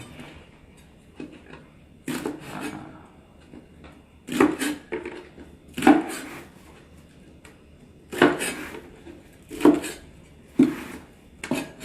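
Kitchen knife chopping long beans into pieces on a wooden cutting board: about seven separate chops at uneven intervals, each a sharp knock with a short crunch.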